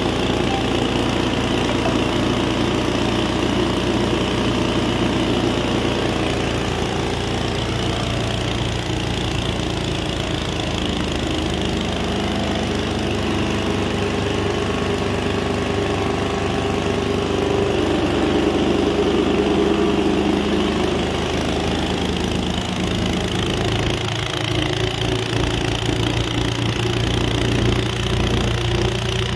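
Grain and husk grinding mill running steadily, with a constant engine-like drone and hum.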